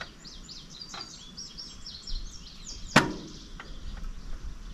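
Latch of a Ventrac 4520 tractor's air filter cap being worked shut: one sharp loud click about three seconds in, with a couple of fainter clicks around it. Small birds chirp through the first half.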